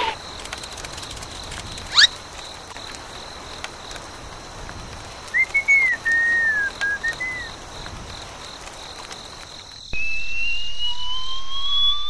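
Cartoon sound effects over a steady background hiss: a quick upward swish about two seconds in, a short warbling whistle in the middle, and a slow rising whistle tone that starts near the end.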